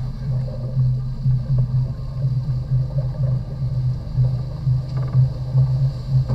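Motorboat engine running steadily under way: a low drone that wavers in level.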